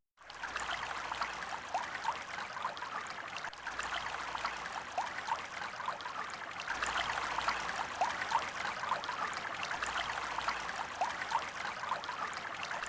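Running water trickling and bubbling steadily, with many small liquid plinks.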